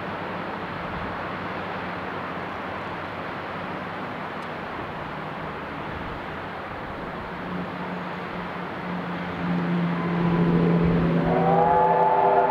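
Steam locomotive working up the grade with a steady rushing sound that grows louder as it approaches. Its steam whistle starts to blow near the end.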